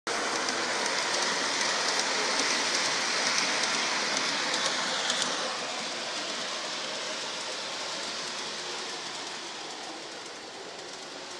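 G scale Amtrak model train running on its track: a steady rushing hiss of wheels and motor with light clicks, loud while the cars pass close and dropping off about five seconds in as the train moves away.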